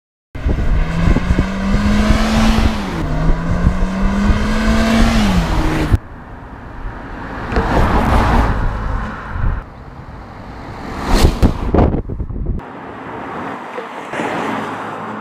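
Kia Forte5 hatchback's engine accelerating, its tone rising, dropping back at a gear change, then rising again. After a cut about six seconds in, the car passes twice with a rush of tyre and wind noise, and there is a fainter pass near the end.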